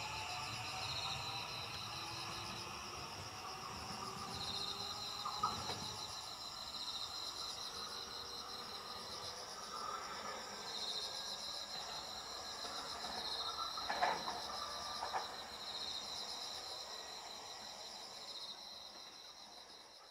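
Insects chirping in steady pulsing trills. In the first few seconds they lie over the fading rumble and rising motor whine of a 521-series electric train pulling away, which soon die out. A couple of short knocks come partway through.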